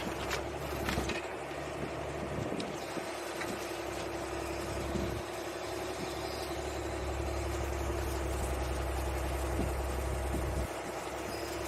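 An engine running steadily with a low rumble, with a couple of sharp clicks about a second in.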